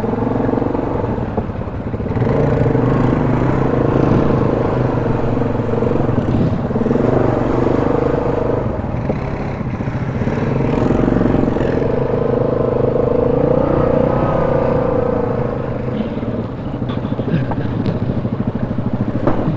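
ATV engine running steadily as the machine rides along a dirt trail, its pitch wavering slightly with the throttle.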